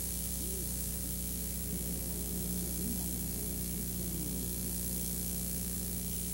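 Steady hiss and mains hum with no programme sound: the noise floor of an old off-air videotape recording.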